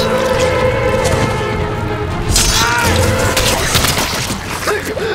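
Horror-film soundtrack: a tense music score with loud crashing hits, and a voice crying out around the middle.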